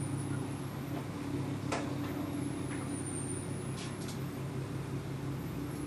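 Steady low mechanical hum, with a faint high tone that dips and climbs back about every three seconds and a few faint clicks.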